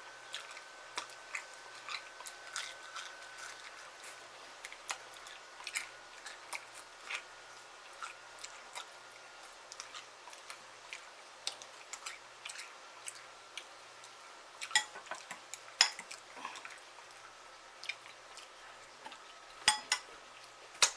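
Eating mouth sounds of someone chewing and biting fried chicken wings in hot sauce and honey: scattered wet clicks and smacks, with a few louder ones about three-quarters of the way in and near the end.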